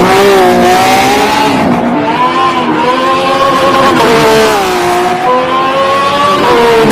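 Racing car engine sound, loud and revving, its pitch rising and falling several times; it starts and cuts off abruptly like an added sound effect.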